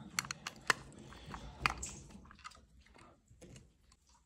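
A scatter of sharp clicks and snaps from pliers and electrical wires being handled, loudest in the first second and again about a second and a half in, thinning out towards the end.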